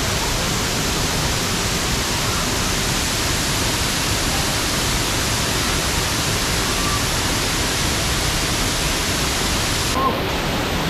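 Waterfall pouring: a steady, loud rush of falling water with no let-up.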